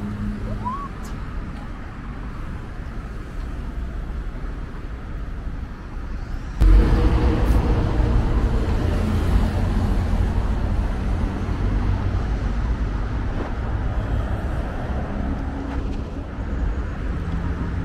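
Road traffic noise, a steady low rumble that suddenly becomes louder about seven seconds in and stays loud.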